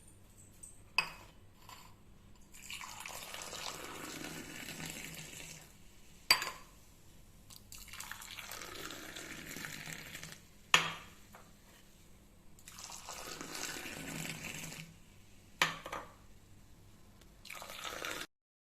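Milk poured in four long pours, each a few seconds long. A sharp clink of a vessel comes before or after each pour.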